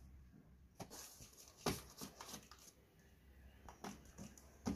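Faint, scattered sharp clicks and knocks, the loudest about a second and a half in and again near the end.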